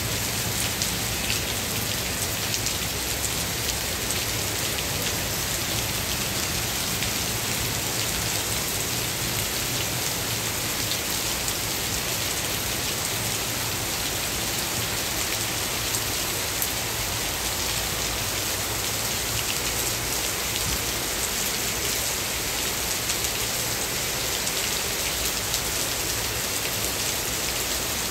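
Steady heavy rain falling on trees, lawns and paved paths: an even hiss with the patter of countless drops.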